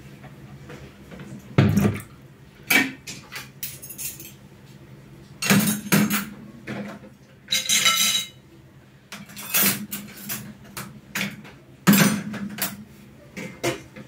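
Dishes and cutlery clattering as plates, pots and utensils are picked up and set down on a table: a string of separate knocks and clinks, with one longer ringing rattle a little past the middle.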